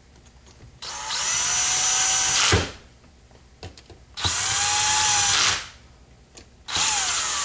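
Electric drill running socket-head crankcase bolts into a Yamaha Blaster two-stroke engine case, three short runs with a whine that rises as the motor spins up and then holds. A knock ends the first run. The bolts are only being run down flush with the case, not torqued.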